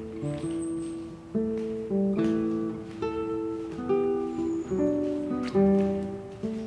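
Background music: an acoustic guitar picking a melody of separate plucked notes.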